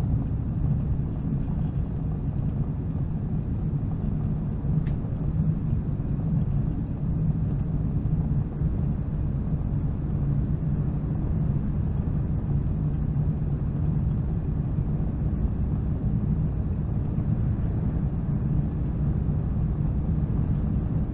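Steady low drone of a truck on the move, heard from inside the cab: engine and road noise holding an even pitch throughout.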